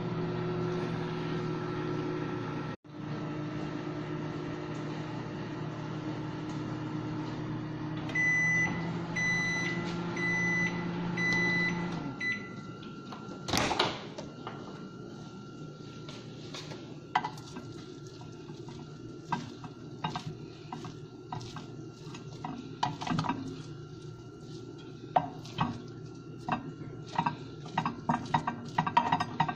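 Microwave oven running with a steady hum, four beeps, then the hum stops about twelve seconds in and the door opens with a clunk. After that, a spoon clicks and scrapes against a ceramic bowl as the cooked sticky rice is stirred.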